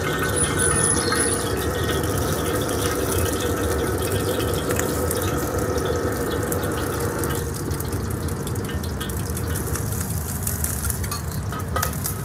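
Gas stove burner under a steel wok running with a steady rushing hiss. From about halfway there are faint light clicks of a spoon beating eggs in a bowl.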